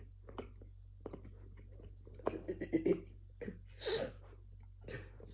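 Samoyed puppy gnawing on a chew toy: irregular small clicks and crunches of teeth on the toy, with one louder breathy snuffle about four seconds in.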